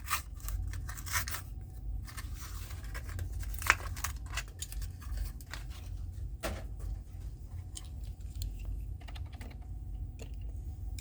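A Hot Wheels blister pack being opened by hand: scattered clicks, crinkles and tearing of the plastic blister and cardboard card, with a couple of sharper snaps, the first about four seconds in.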